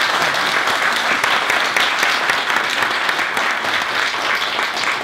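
Audience applauding steadily, a dense patter of many hands clapping, easing off toward the end.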